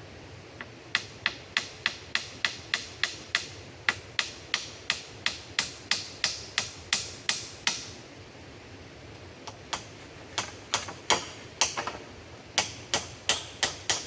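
A rapid series of sharp knocks, about three a second, in two runs with a pause of about two seconds between them.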